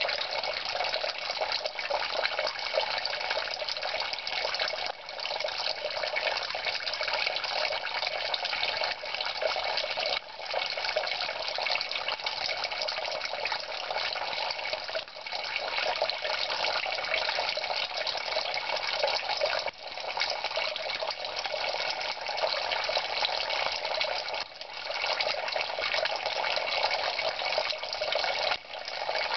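Water running steadily through the drip tubing of a homemade Kelvin water dropper and falling into its metal cans and buckets: an even splashing hiss that dips briefly about every five seconds.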